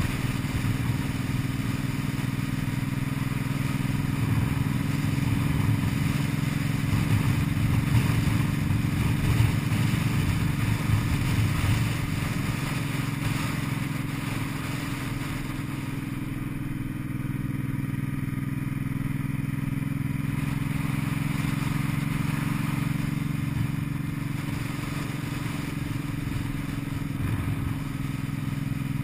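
Cruiser motorcycle engine running steadily while riding, with a steady rushing noise over it. The engine grows louder for several seconds in the first half, then settles back.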